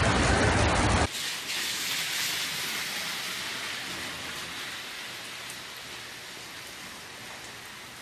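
Heavy rain falling, a steady hiss of water on the ground and parked cars. About a second in it cuts abruptly from a louder, fuller rush to a thinner hiss that slowly fades.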